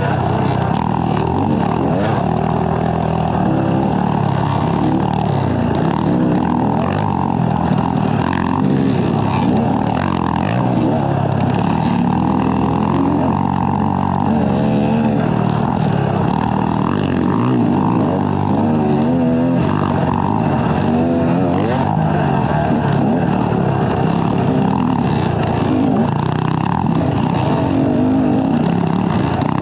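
Dirt bike engine running hard and revving up and down continually as it is ridden.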